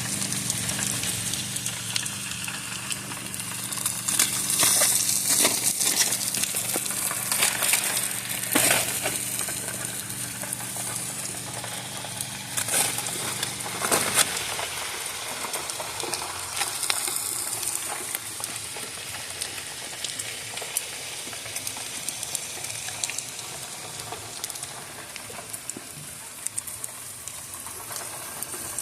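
Chicken and ribs sizzling on a grill, crackling steadily, with a few louder clatters in the first half. A low steady hum runs underneath and stops about halfway through.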